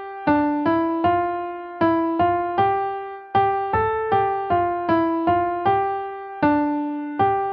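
A simple melody played one note at a time on a piano-like keyboard, each note struck and left to fade, about two to three notes a second with a few longer held notes.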